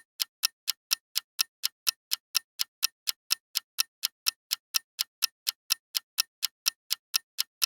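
Clock-tick sound effect of a quiz countdown timer: sharp, evenly spaced ticks at about four a second, marking the time left to answer.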